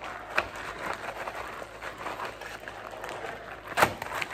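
Plastic zip-top bag holding lamb chops in marinade crinkling and rustling as it is handled, with one sharper crack near the end.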